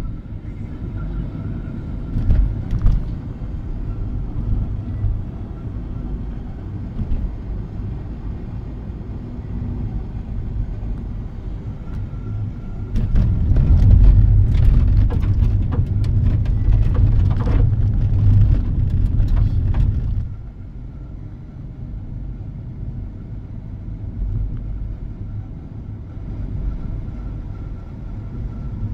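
Road and tyre noise inside a moving car's cabin, a steady low rumble. About halfway through it turns louder and rougher, with many scattered clicks and rattles, as the tyres run over an unpaved gravel stretch of roadworks. After about seven seconds it drops back to the quieter asphalt rumble.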